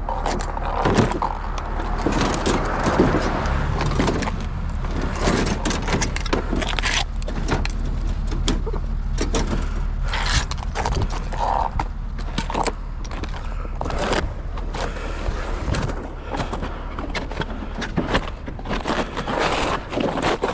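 Snowshoe footsteps crunching through crusted, rotten snow and a loaded plastic sled scraping along, its gear rattling. Wind buffets the microphone with a steady low rumble.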